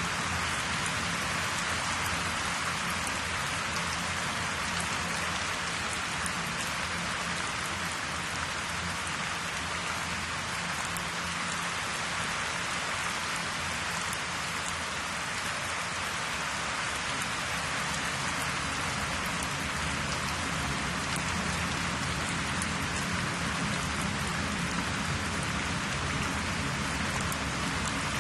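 Steady, even hiss that sounds like rain, with a faint low hum under it and no change throughout.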